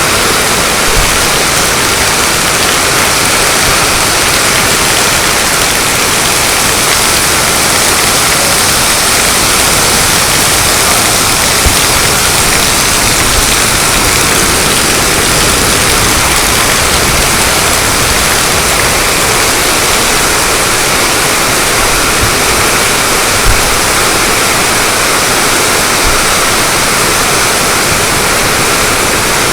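Heavy rain pouring onto a tin roof: a dense, steady hiss with a few soft low thuds.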